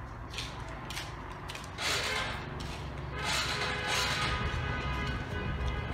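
Noodles slurped loudly twice, about two seconds in and again about three seconds in, after a few light clicks. A steady low rumble and a faint whining tone run underneath from about three seconds on.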